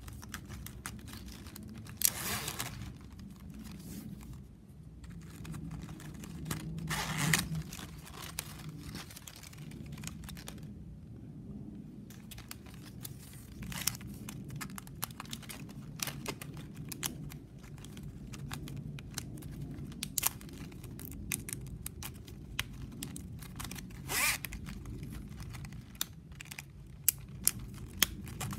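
9 mm plastic strapping band being woven by hand: the stiff strips crinkle, scrape and click as they are pulled and slid through the woven squares. There are many small clicks and a few longer scraping sounds, near two seconds in, about seven seconds in and near the end.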